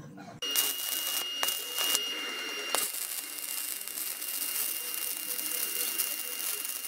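Stick (arc) welding on steel plate: the electrode arc crackling and sizzling steadily, starting suddenly about half a second in, with a few sharper pops in the first three seconds.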